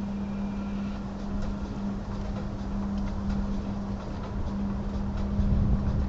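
Storm wind buffeting the microphone as a low rumble, getting stronger near the end, with a steady low hum underneath.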